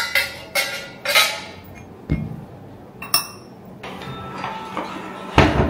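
Metal and ceramic kitchenware clinking as it is handled and put away: three sharp ringing clinks in the first second or so. Then a dull knock, a sharp click, and a louder knock near the end.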